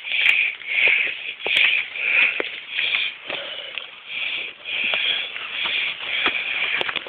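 Rustling, rubbing noise from a handheld camera being carried while walking, in quick bursts about twice a second, with a few soft knocks.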